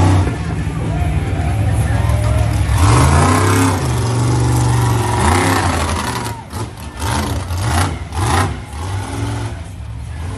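Monster truck engine revving hard, its pitch rising and falling. About six seconds in, a quick run of bangs and knocks as the truck drives over the crushed cars.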